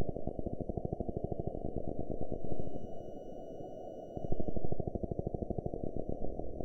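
A low, muffled buzzing drone made of rapid pulses, dipping briefly in the middle.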